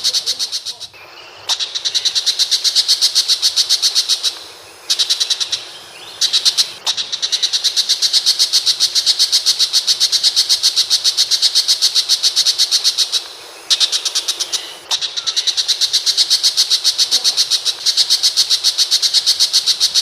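A shrike, the 'pentet macan', giving a long, rapid string of sharp, high, evenly spaced notes, about five a second. The string breaks off briefly a few times and resumes.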